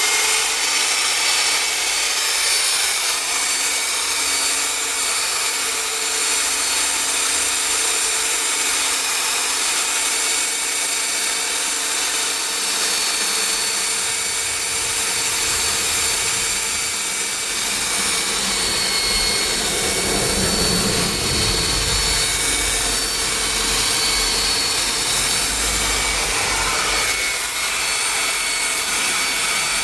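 Electric machine polisher running steadily at a raised speed setting with a high whine, buffing sanded paintwork back to a shine.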